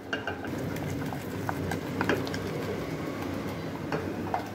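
Wooden spoon beating and stirring mashed potato in an aluminium saucepan, with irregular knocks and taps against the pan over a steady low rush.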